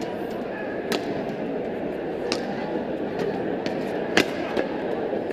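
Badminton rackets striking a shuttlecock in a fast doubles rally: several sharp hits a second or two apart, the loudest about four seconds in, over the steady background noise of the sports hall.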